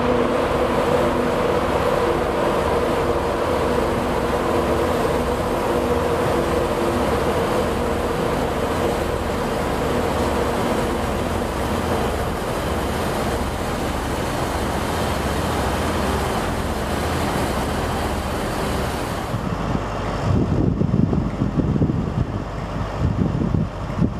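Class 91 electric locomotive at a platform, its electrics humming in several steady tones over a general rumble of train noise; the hum fades after about six seconds. After about twenty seconds wind buffets the microphone in gusts.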